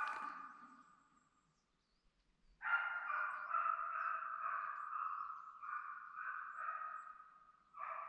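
Gotland hound (gotlandsstövare) baying at a distance while it drives a hare, a drawn-out run of cries that blend together. It fades away about a second in, goes quiet, then starts again a little before halfway and keeps on, with a short break near the end.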